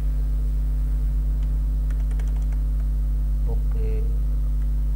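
A quick run of keystrokes on a computer keyboard about two seconds in, over a steady electrical mains hum.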